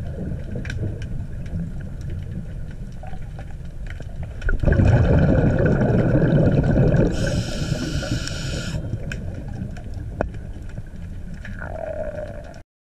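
Underwater recording of a scuba diver breathing through a regulator, over a steady low underwater rumble with scattered clicks. A louder burst of exhaled bubbles comes about five seconds in and lasts about two seconds. It is followed by a hissing inhalation, and the sound cuts off just before the end.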